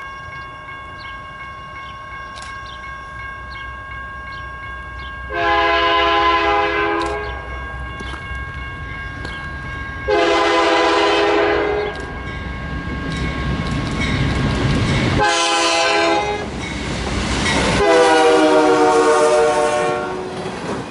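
The air horn of the lead Illinois Central–painted diesel locomotive sounds four blasts, long, long, short, long, the grade-crossing signal. Under it runs the growing rumble of the approaching freight train, with the cars rolling past near the end.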